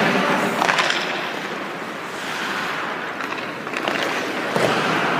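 Hockey skates scraping and carving across rink ice, with a few sharp clacks of stick on puck.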